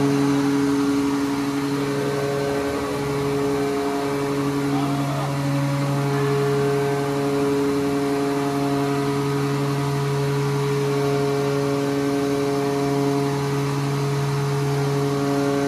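A ship's electro-hydraulic steering gear running, its pumps giving a steady machine hum as the hydraulic rams slide through the tiller and swing the rudder stock. The hum holds at one pitch, dipping briefly a few seconds in.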